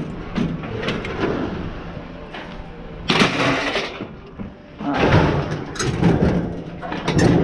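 Scrap junk being handled and loaded: several bursts of scraping and knocking with sharp clicks, the loudest about three seconds in and again from about five seconds in.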